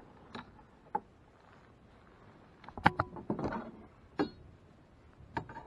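Irregular knocks and rattles of a caught crappie and gear being handled on a kayak, the loudest a sharp knock about three seconds in, followed by a short rattle.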